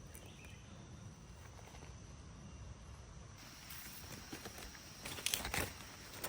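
Rustling and crackling in dry forest leaf litter, quiet at first, then a short cluster of louder crunches about five seconds in.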